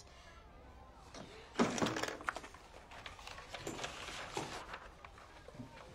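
Paper rustling and crinkling as a sheet of drawing paper is pulled out and handled, loudest about one and a half seconds in, with softer rustles around four seconds.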